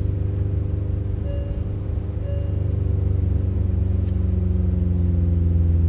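Hyundai Ioniq 5 N's synthesized engine sound heard inside the cabin: a steady petrol-engine-like drone, growing slightly louder as the car pulls. Two short beeps of the speed-limit information chime sound over it about one and a half and two and a half seconds in.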